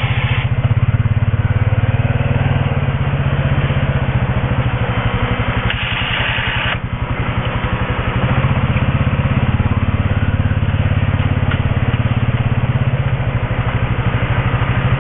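Small engine of a snow-clearing machine running steadily under load, with an even pulsing beat and a brief hiss about six seconds in.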